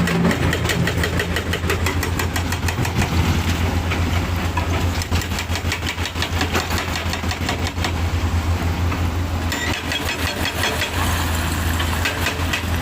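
Heavy diesel engine running steadily with a fast, even clatter; it grows harsher and brighter about three-quarters of the way through.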